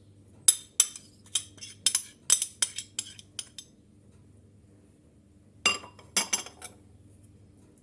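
A spoon clinking sharply against a mixing bowl, a rapid run of about a dozen taps followed after a pause by three or four more, as a big spoonful of lemon zest is added to the cake batter.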